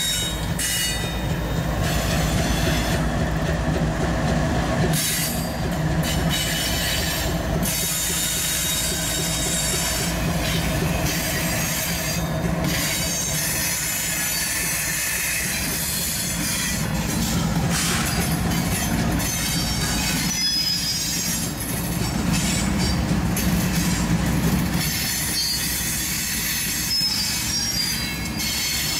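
CSX freight train passing close by: the diesel locomotives run with a steady low hum over the rumble of wheels on the rails. A high-pitched wheel squeal comes and goes.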